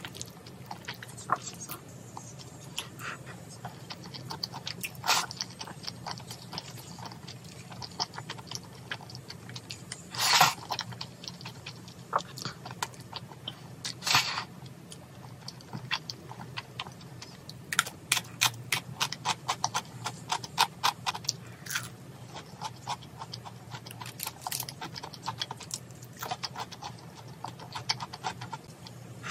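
Close-miked eating of cream-sauced tteokbokki with chewy jjolmyeon noodles: many small, wet chewing clicks and smacks, with three louder slurps of noodles about 5, 10 and 14 seconds in.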